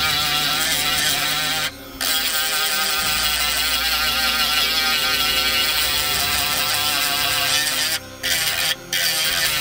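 Handheld rotary tool spinning a sanding drum against wood, a steady high motor whir with a slightly wavering pitch as it grinds the wood down. It cuts out briefly about two seconds in and twice near the end.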